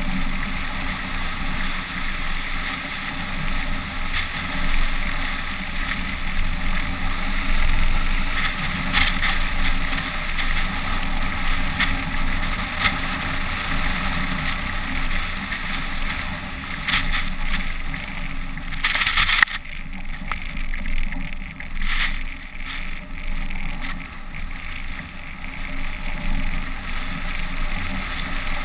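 SUV driving across deep snow, heard from a camera mounted on its outside: steady wind rush over the microphone with engine and tyre rumble beneath, and scattered knocks throughout, the loudest a short burst about two-thirds of the way through.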